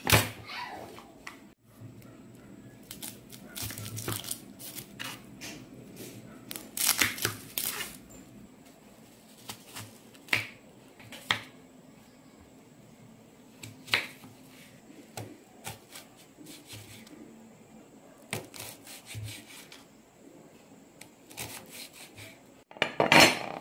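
A kitchen knife cutting an onion on a wooden cutting board: irregular knocks of the blade on the board and crisp crunches of the onion, with pauses between cuts.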